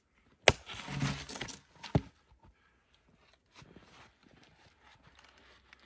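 A large axe strikes a knotty log round about half a second in with a sharp wooden knock. A second, quieter knock follows about a second and a half later. The blade lodges in the round without splitting it. Faint scuffs and crunches follow.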